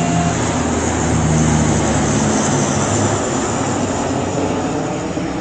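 Formation of turboprop military transport aircraft, a four-engine turboprop flanked by twin-engine turboprops, passing overhead. Its propeller drone is loud and steady with a low hum, peaking about a second and a half in and slowly fading as the formation moves away.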